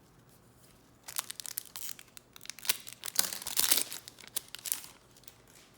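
A trading-card pack wrapper crinkling and tearing open, a dense run of sharp crackles starting about a second in and loudest a little past the middle.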